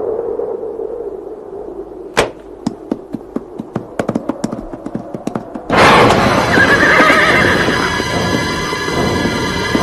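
A horse's hooves clatter in an uneven run of sharp clicks. About six seconds in, a loud dramatic soundtrack cuts in, with a horse whinnying over it.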